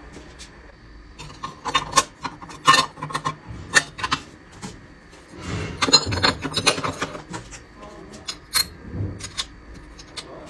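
Steel clutch drum and gear parts of an automatic transmission clinking and scraping as they are worked by hand into the aluminium case: irregular sharp metal clicks, with a busier stretch of rubbing and clatter about halfway through.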